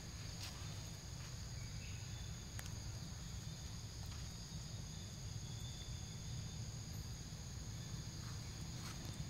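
Steady high-pitched insect chorus over a low rumble, with a few faint clicks.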